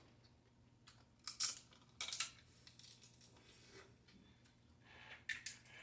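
Snow crab shells being cracked and broken apart by hand: a few short, sharp cracks and crunches about a second in, at two seconds, and again near the end.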